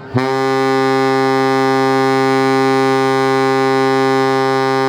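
Ship's horn of the Pelni passenger ship KM Lawit sounding one long, steady blast on a low note, starting suddenly just after the beginning. It is one of the three long blasts given as the ship prepares to depart.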